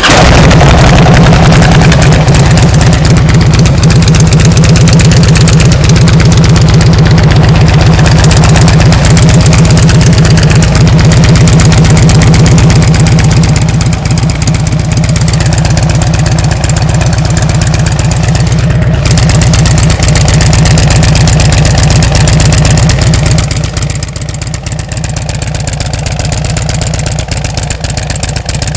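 2007 Harley-Davidson Ultra Classic's V-twin running just after start-up, heard through Rush slip-on mufflers with 1.75-inch baffles: a very loud, steady, evenly pulsing exhaust note. The level drops noticeably about four-fifths of the way through.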